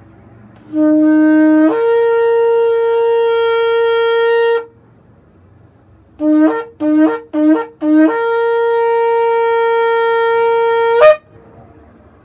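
Shofar blasts. A long blast steps from a low note up to a higher note and holds for about three seconds, then four short broken blasts follow, each jumping from low to high. A second long blast is held for about three seconds and ends with a brief upward break.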